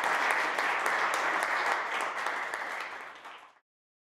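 Small audience applauding, with the clapping fading out about three and a half seconds in to complete silence.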